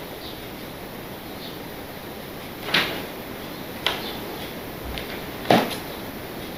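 Three short, sharp knocks as model railway rolling stock is handled and set down on the layout, over a steady background hiss; the third knock is the loudest.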